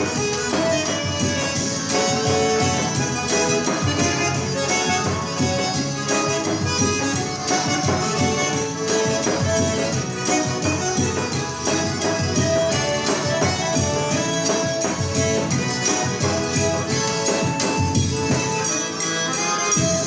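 Forró band playing an instrumental passage with no singing: held melody notes over a steady, driving dance beat with jingling percussion.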